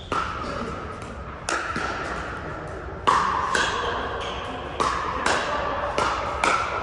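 Pickleball rally: paddles hitting the hollow plastic ball, about eight sharp pops in irregular succession, each ringing briefly and echoing around a large hall.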